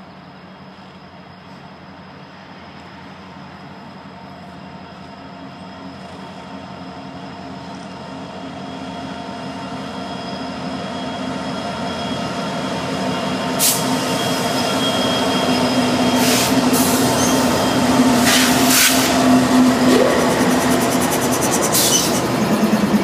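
Diesel-hauled freight train approaching and passing close by. The locomotives' engine drone grows steadily louder. Several brief high-pitched screeches ring out in the second half as the locomotives go by.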